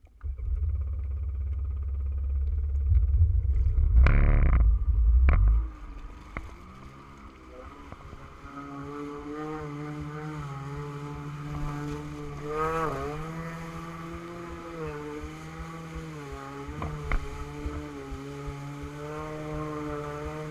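A loud low rumble for the first few seconds, then a stand-up jet ski's engine running, its pitch rising and falling as the throttle is worked.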